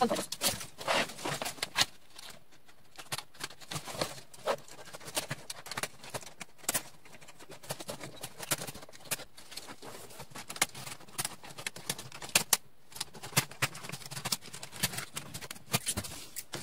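Scissors snipping through chicken wire, with irregular sharp clicks a few times a second as the cut wire and loose mesh rattle.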